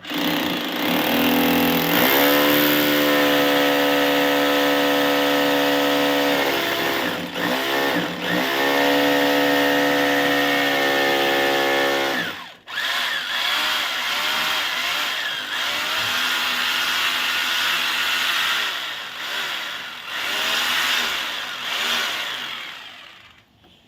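Hilti TE-2 rotary hammer drilling in hammer mode. The motor runs at a steady pitch for about twelve seconds with two short dips, stops briefly, then runs again with a wavering pitch until it stops near the end.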